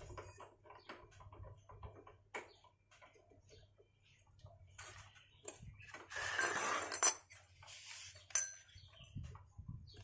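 Metal parts and hand tools clinking and tapping in scattered short clicks, with a louder scraping rattle from about five to seven seconds in.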